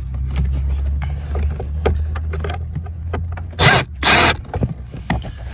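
Cordless drill-driver with a socket running in two short bursts, about three and a half and four seconds in, backing out a blower motor screw. A steady low hum sits underneath.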